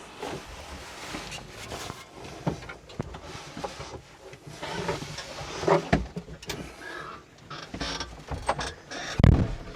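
Rustling, shuffling and knocks of a person climbing into a cramped tractor cab over stored gear, with a heavy thump about nine seconds in.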